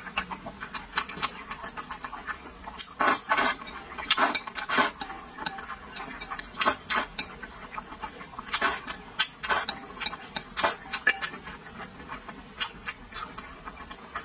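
Close-miked eating of a braised pork rib: wet chewing and lip smacks in quick irregular clicks, with louder clusters of smacking about three to five seconds in and again around nine to eleven seconds. Wooden chopsticks tap against the ceramic bowl now and then.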